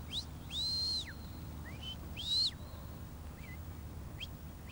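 A sheepdog handler's whistled commands to his working dog: a longer high arched whistle about half a second in, then several shorter rising and falling whistles, directing the dog as it brings the sheep in.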